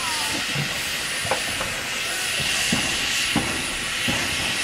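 Robert Stephenson and Hawthorns 0-4-0 saddle tank steam locomotive hissing steadily as steam escapes, with a few sharp metallic clanks.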